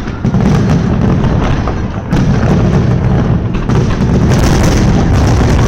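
Fireworks display: a dense, continuous run of booming aerial shell bursts, with a spell of crackling bursts about four seconds in.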